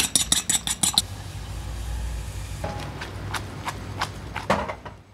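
A fork beating an egg against a ceramic plate: quick clicking strokes, about seven a second, for the first second. Then the steady low rumble of a frying pan cooking pasta in liquid on a stove burner, with a few light clinks, fading away near the end.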